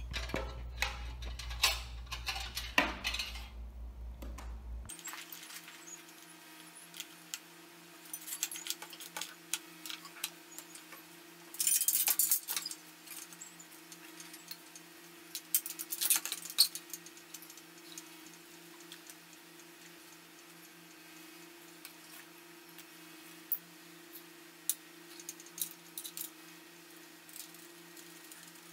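Scattered metallic clinks and clatter of tools and bolts on an aluminium-extrusion frame during assembly, with louder rattles about twelve and sixteen seconds in, over a steady low hum. For the first five seconds a louder low rumble with handling noise is heard instead.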